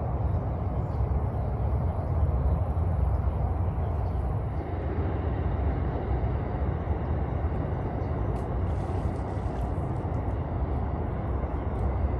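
Steady low rumble of wind buffeting the microphone, with a fainter hiss above it.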